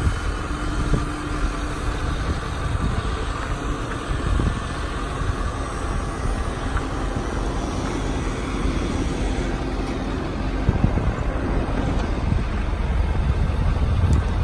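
The Power Stroke turbo diesel V8 of a 2008 Ford F450 bucket truck runs steadily with the PTO engaged, driving the hydraulic pump while the Altec telescopic boom is raised.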